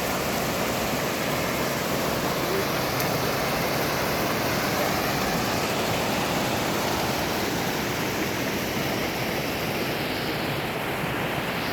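Rushing water of a fast-flowing stream, a steady, loud, even rush throughout.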